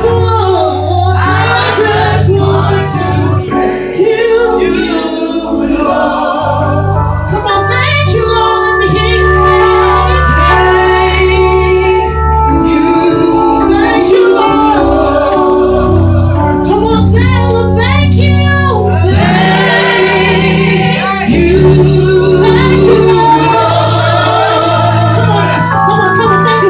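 Gospel music with singing: voices over sustained bass and keyboard notes.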